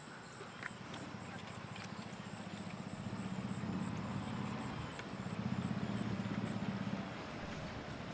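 A low engine hum that swells about three seconds in and eases off near the end, with faint voices behind it.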